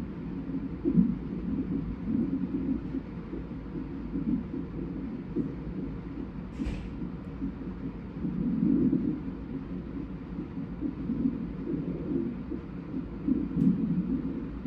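A fetal heart monitor's Doppler speaker during a non-stress test plays the low, pulsing whoosh of an unborn baby's heartbeat, with swells in loudness as the baby moves.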